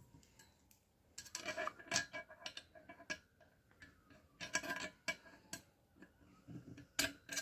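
Metal tubes and fittings of a flat-pack bed frame clicking and clinking lightly as they are handled and pushed together, in scattered clusters of short sharp clicks.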